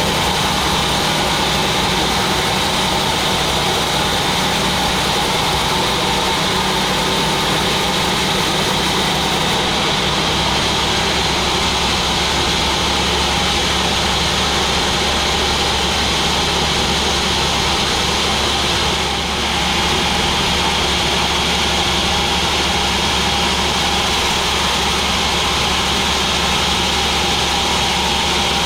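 Sawmill machinery running steadily, a constant mechanical drone with a brief slight dip in level about two-thirds of the way through.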